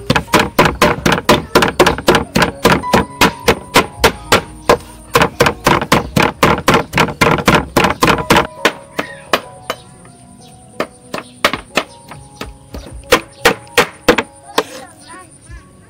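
Steel cleaver chopping small fish on a wooden cutting board: quick, even chops about four a second for the first eight seconds or so, then slower, scattered chops.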